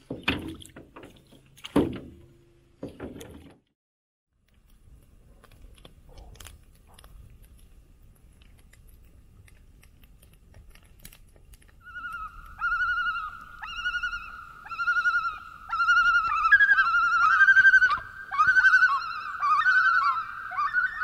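A few knocks at the start. From about twelve seconds in, a common loon gives a long wavering, quavering tremolo call, repeated and growing louder, with a second voice joining near the end.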